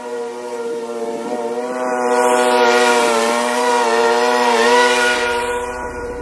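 Troy-Bilt Pony 42-inch riding lawn mower with its 547cc single-cylinder engine running as it drives past: a steady, whining engine hum that grows louder over the first couple of seconds, stays loud, then eases off near the end.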